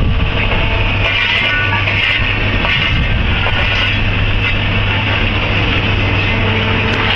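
Heavy diesel machinery running steadily, a constant low engine hum with a broad mechanical rumble.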